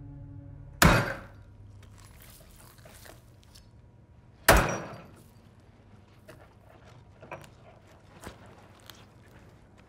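Two heavy chops of a meat cleaver through a raw chicken onto a wooden cutting board, about three and a half seconds apart, followed by a few faint knocks.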